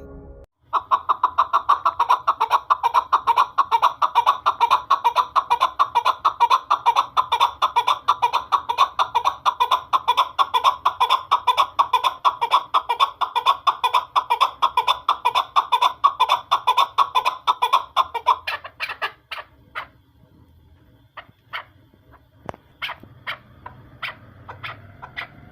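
Chukar partridge calling: a long, fast run of short 'chuk' notes, several a second, that ends about eighteen seconds in and gives way to scattered single notes a second or so apart.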